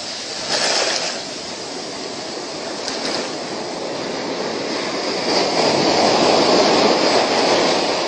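Surf washing up a sandy beach, heard as a steady rush of noise that swells from about five seconds in.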